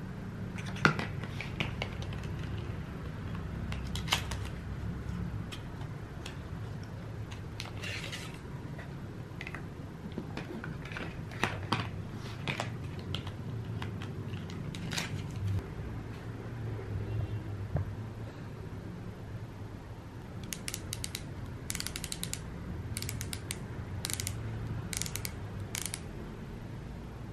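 Hands handling plastic lip makeup tubes and their paperboard boxes on a table: scattered taps, rustles and clicks as the boxes are opened and the tubes picked up and set down, with a quick run of sharp clicks in the last third, over a steady low hum.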